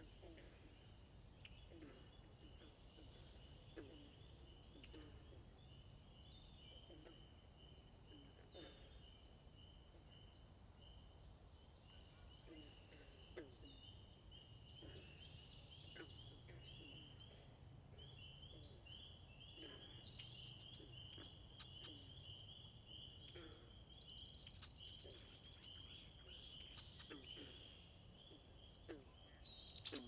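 Faint natural ambience: a steady high insect trill, with short high-pitched bird chirps every several seconds, the loudest near the end.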